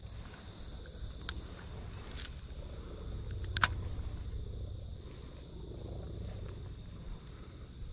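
Spinning reel being slowly cranked, a low steady whirr, with two sharp clicks about a second and about three and a half seconds in.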